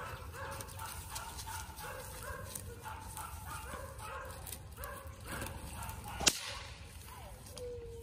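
Puppies whining and yipping in a run of short, repeated cries, with a longer whine near the end that falls in pitch and then holds. One sharp crack about six seconds in is the loudest sound.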